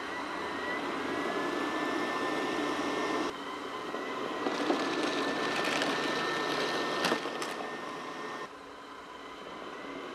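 MinSu MSTC09 robot vacuum running: a steady motor hum and whirr with a high whine, dropping abruptly in level about three seconds in and again near the end, with a few sharp clicks around the middle.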